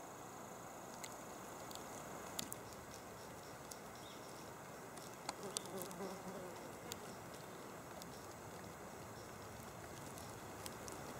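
Faint outdoor background: a steady hiss with scattered small clicks, a thin high tone that stops about two and a half seconds in, and a brief faint low pitched sound about six seconds in.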